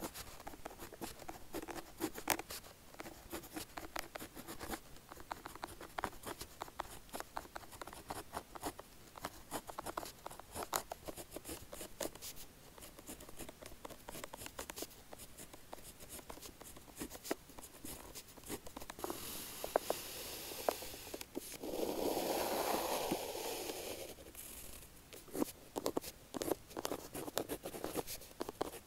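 A 0.5 mm bullet-tip pen writing on paper: a steady run of quick scratches and ticks of the strokes. About two-thirds in comes a longer rustling swish, the loudest part.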